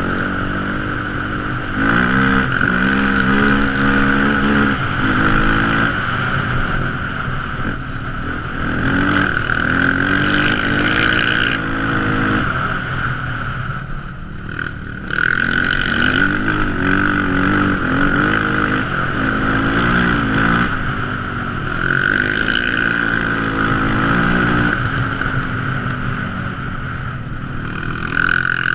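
Quad ATV engine running under changing throttle, its pitch climbing and falling again and again, with a brief dip about halfway through. A steady high whine runs alongside the engine.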